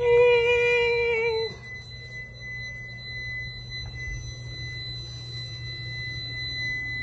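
An APC UPS alarm sounds a steady, high-pitched electronic tone, the warning that staff reported from the server. For about the first second and a half a louder, lower wavering tone plays over it, then cuts off.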